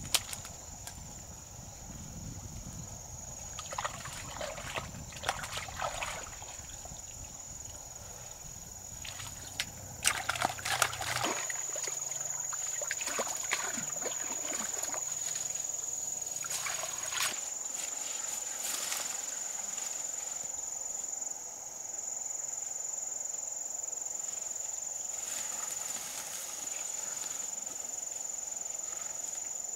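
Water sloshing and splashing in scattered bursts, most busily about ten seconds in, over a steady high-pitched whine.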